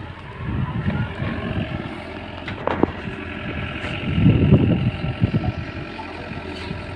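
JCB 3DX backhoe loader's diesel engine working, its rumble swelling and easing, with a sharp knock about three seconds in and a louder stretch about four seconds in.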